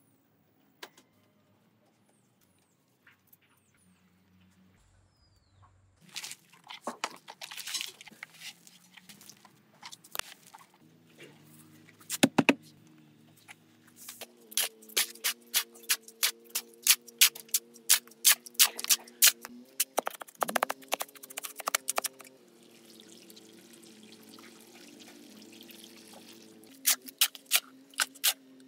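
After a few quiet seconds, a steel shovel scrapes and chops repeatedly on a concrete floor as cement and sand are mixed into mortar, with a stretch of hissing water-like pouring and wet mortar scooped into a plastic bucket near the end. Faint sustained background music runs underneath.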